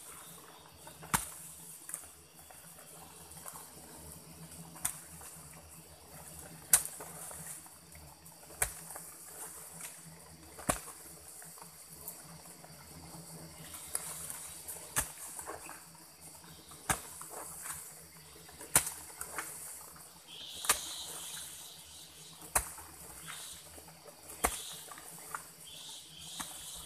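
Hoe blade striking soil in slow, even strokes about every two seconds, digging out a ground-nesting wasp nest.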